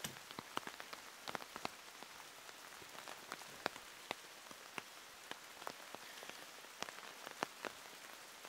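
Steady rain falling, with individual drops tapping sharply and irregularly close to the microphone.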